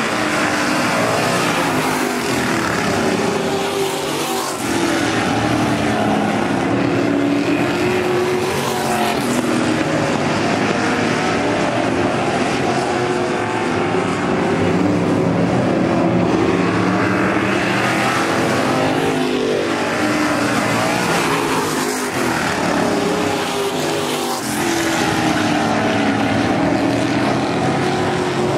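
Stock Eight dirt-track race cars running laps, several engines at once, with pitch rising and falling again and again as cars pass by.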